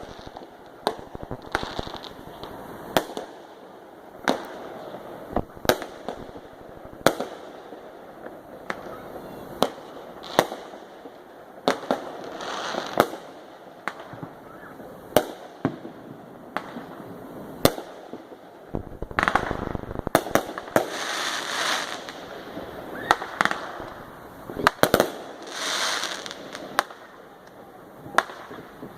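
Fireworks going off: a string of sharp bangs at irregular intervals, with stretches of crackling hiss from the shells around the middle and in the last third.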